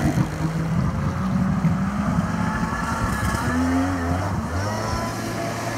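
1998 Kawasaki ZXI1100 jet ski's two-stroke three-cylinder engine under throttle as the ski pulls away. Its note climbs in steps a little past halfway through as it gathers speed.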